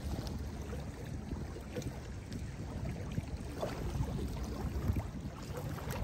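Small lake waves lapping and splashing at a sandy shore, with many little splashes over a low steady rumble.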